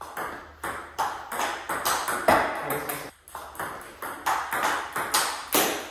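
A ping-pong ball in a continuous table tennis rally, knocking alternately off the table and off the paddles, one faced with provincial Hurricane 3 Neo rubber, at about two to three sharp knocks a second.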